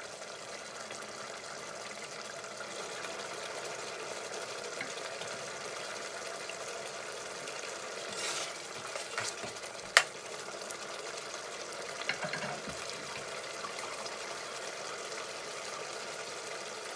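Tomato sauce simmering steadily in a large aluminium pot. About eight seconds in, a metal ladle stirs it with a few scrapes and clinks, and one sharp clank against the pot about ten seconds in.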